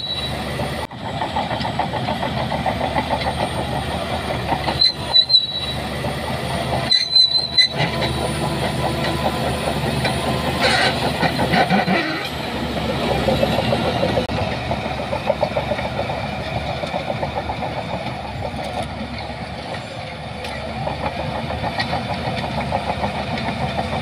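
Crawler bulldozer running under load, its steel tracks clanking and rattling in a fast, steady clatter as it pushes sand.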